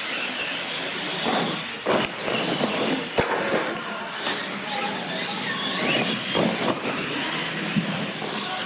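Radio-controlled monster trucks racing on a concrete floor: electric motors whining up and down, with tyre noise and several sharp knocks as the trucks hit the launch ramps and land.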